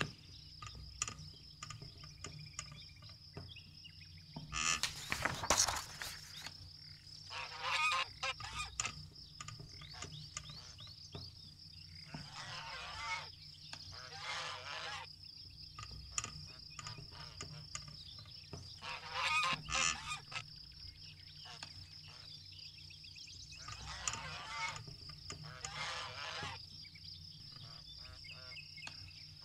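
Birds calling in bursts every few seconds, over a steady high-pitched tone and a low hum.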